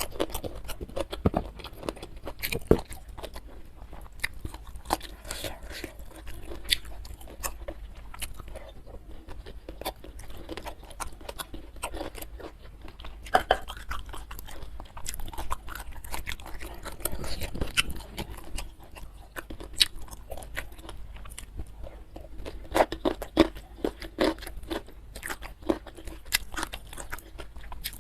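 Close-miked chewing and crunching of food, with irregular crisp bites and smacks through the mouthfuls and louder bursts of crunching at a couple of points.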